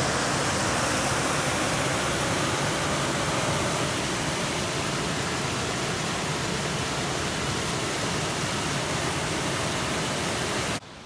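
Waterfall: a steady rush of falling water, cut off abruptly near the end.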